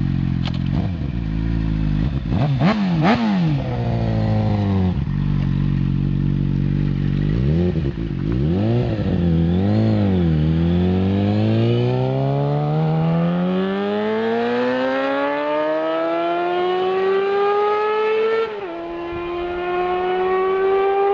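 Suzuki GSX-R600 inline-four engine blipped in several quick revs. It then pulls up through the revs in one long climb, and a gear change near the end drops the pitch before it climbs again.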